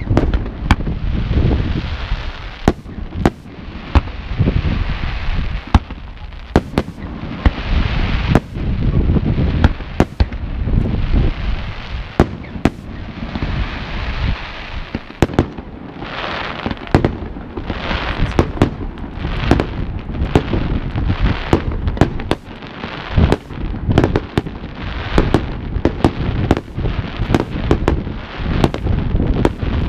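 Aerial fireworks display: shells bursting in sharp bangs all the way through, often several within a second, with stretches of crackling hiss between the bangs.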